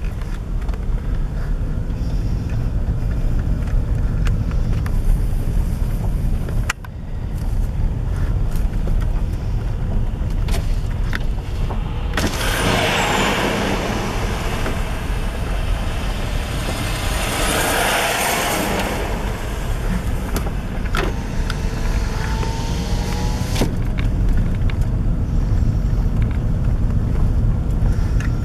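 Steady road rumble inside a car's cabin on a rough dirt road. About halfway through, a heavy truck passes going the other way, a loud rushing swell lasting several seconds.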